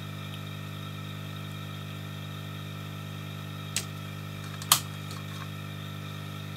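Steady electrical hum, with two sharp clicks a little under a second apart near the middle, the second louder: metal multimeter probe tips touching down on the circuit board.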